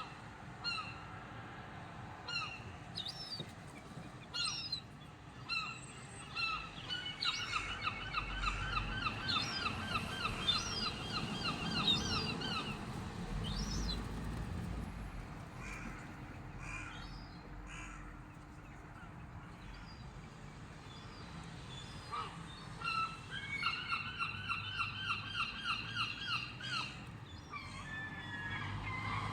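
Birds calling, with short scattered notes and two long, fast runs of the same repeated call, the first starting about a quarter of the way in and the second near the end.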